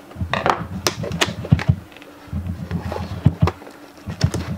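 Sealed product packaging being worked open by hand: a series of sharp clicks and crackles, with an uneven low rumble of handling noise.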